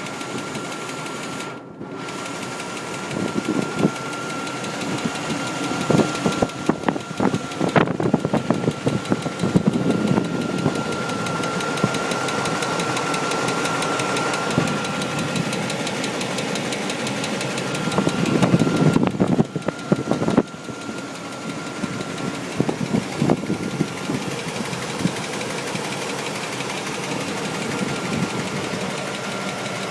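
1998 Chevrolet Tahoe's 5.7 L Vortec small-block V8 running with a knock; the engine also shows low oil pressure since its intake gasket was replaced. A thin steady whine runs under it, and sharp irregular strokes come thickest in two stretches, several seconds in and again about two-thirds of the way through.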